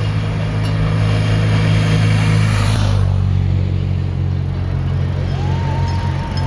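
Motorcycle engine running steadily as it approaches along the road, its low note shifting about halfway through. About five seconds in, a high tone rises and then holds steady.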